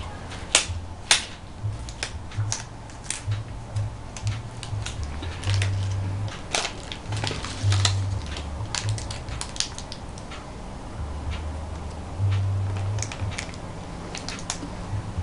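Latex gloves being pulled on, then sterile paper wrappers crinkling and crackling as they are unfolded and handled, with many sharp, irregular clicks, over a low, uneven hum.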